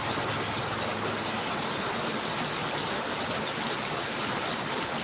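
Steady rushing background noise.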